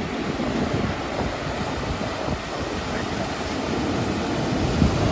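Ocean surf breaking, with wind rumbling on the microphone; the noise swells slightly toward the end.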